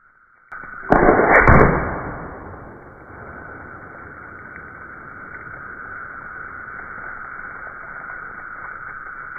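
A single loud air rifle shot from a .35 calibre (9mm) M25 about a second in, with a second peak half a second later, dying away over a couple of seconds, followed by a steady hiss.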